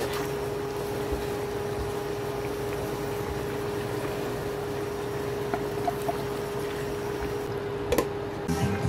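Steady mechanical hum with one constant mid-pitched tone over a pot of stew simmering on the stove. Near the end a single sharp clink as the glass lid is set on the pot.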